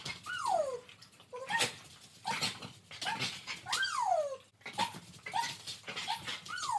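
Excited border collie whining and yipping during trick training: three long falling whines, each about half a second, and shorter yips in between, with sharp clicks and taps throughout.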